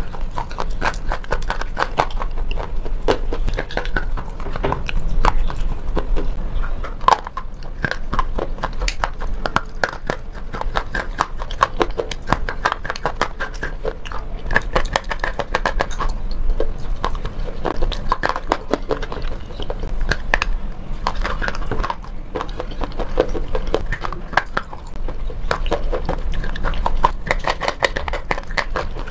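White slate pencils being bitten off and chewed: continuous crunching made of many sharp, rapid clicks and crackles.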